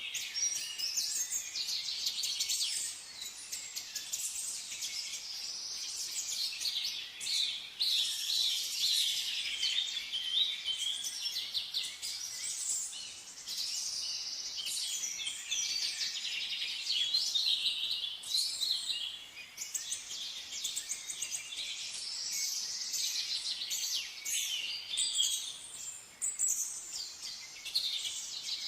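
Chorus of small songbirds chirping and trilling over one another, dense and continuous, all high-pitched.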